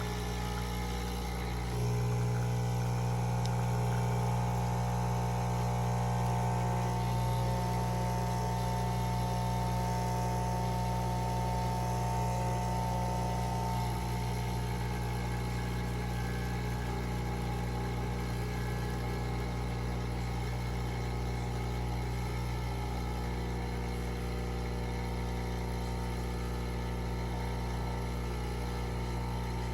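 A steady low mechanical hum from a running engine or motor, its tone shifting slightly about halfway through.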